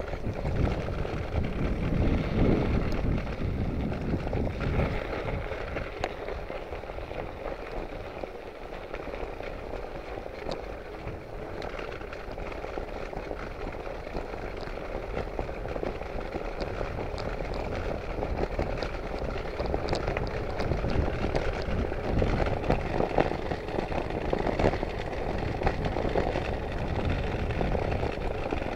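Riding noise from a moving bicycle: tyres rolling on the road and wind on the microphone, a steady, uneven rumble with a few faint clicks.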